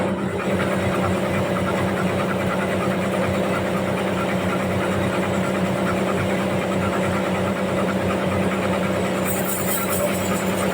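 Sawmill machinery running steadily with a low, even hum. A high hiss joins about nine seconds in.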